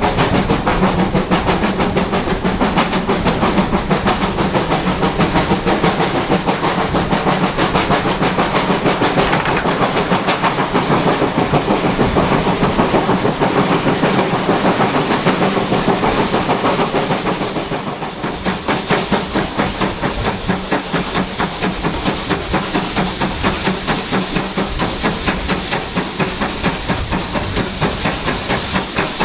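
Two-cylinder GWR Manor class 4-6-0 steam locomotive 7822 Foxcote Manor working hard, heard from the carriages behind: a rapid, even beat of exhaust chuffs. From about halfway a hiss of steam rises over the beats.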